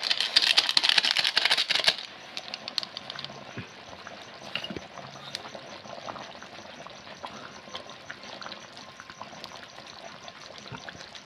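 Goat meat curry simmering in a metal wok over a wood fire, opening with a loud crackling hiss for about two seconds that then settles into a quieter steady bubbling, with scattered small clicks of a metal spoon stirring against the pan.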